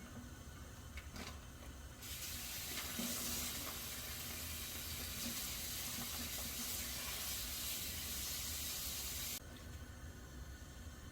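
Kitchen tap running for about seven seconds. It comes on about two seconds in and is shut off abruptly, with a few light clicks before it.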